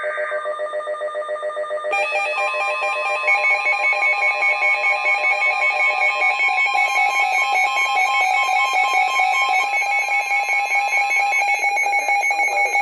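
Weather alert radios sounding their alert alarms for a severe thunderstorm warning: several shrill electronic tones pulsing about four times a second, with more joining about two seconds in. Under them, a steady tone runs for about nine seconds, typical of the NOAA Weather Radio 1050 Hz warning alarm tone that comes before the message.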